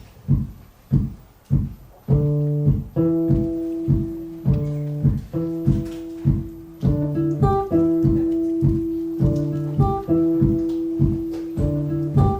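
Live guitar music playing a song's instrumental intro. A steady beat comes about twice a second, and about two seconds in, ringing guitar chords join it.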